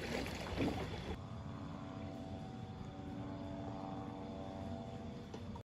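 Faint, steady drone of a distant engine, with a low rumbling noise beneath it. It cuts off abruptly just before the end.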